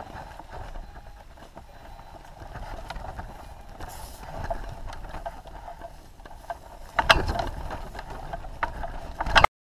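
Wind rumble on a hang glider's keel-mounted camera during the ground run after landing, with footfalls and small rattles of the glider frame. There is a loud knock about seven seconds in and another just before the sound cuts off abruptly.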